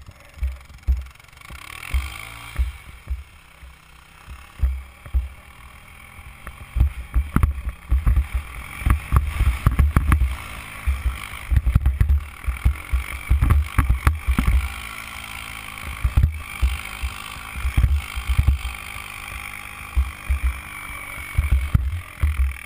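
A rider towed through snow behind an ATV: heavy, irregular low rumble and thumps on the helmet-mounted camera with scattered knocks and a hiss of snow, and the ATV engine running steadily ahead, most clearly from about eight seconds in.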